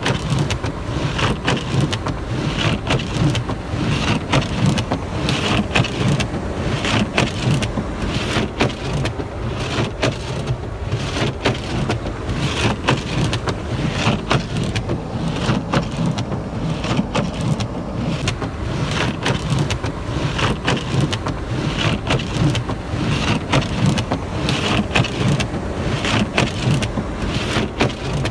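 Blizzard wind rumbling steadily, with many sharp ticks like ice and snow striking, and a swishing sound that repeats about every one and a half seconds.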